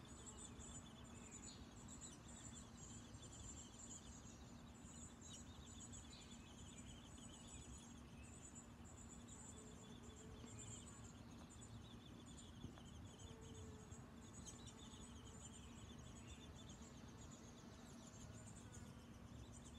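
Near silence outdoors: faint, high, pulsing insect chirping and trilling, over a faint low steady hum.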